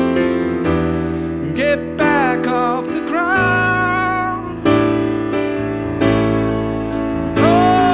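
Digital piano played in full chords through an instrumental break of a blues-rock song, with a lead melody above it that slides and wavers in pitch.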